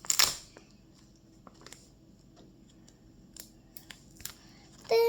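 Paper handling: a brief loud rustle at the start, then scattered soft clicks and taps as the pages of a homemade paper squishy book are handled.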